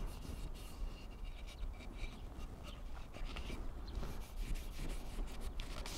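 A cotton rag rubbed back and forth along a bare wooden axe handle, working linseed oil into the wood: soft, quick rubbing strokes.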